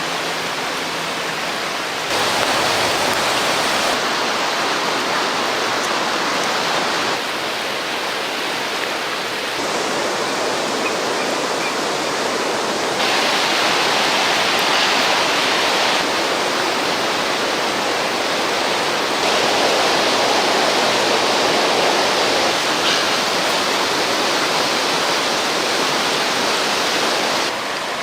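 River water rushing, a steady noise that shifts suddenly in loudness and tone every few seconds.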